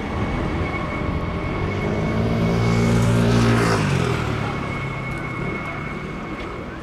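MD902 Explorer helicopter with twin Pratt & Whitney 206E turboshaft engines passing low overhead. Its rotor and engine sound builds to a peak about three seconds in, then drops in pitch and fades as it moves away, over a steady high whine.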